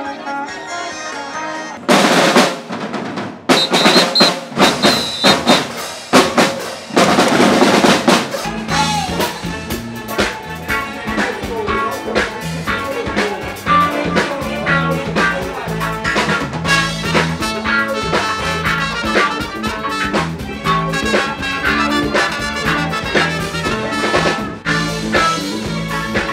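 Music: a run of loud snare drum rolls and hits for about six seconds, then a band comes in with a steady, repeating bass beat.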